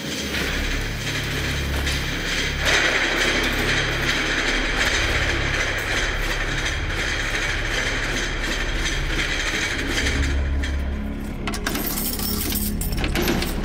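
A steady mechanical clatter, then near the end sharp metallic clicks and scraping as a thin tool is worked in a keyhole lock.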